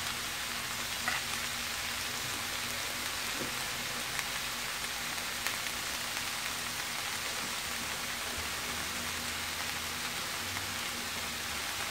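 Bok choy, carrots and other vegetables sautéing in olive oil in a skillet, sizzling steadily, with a few faint ticks.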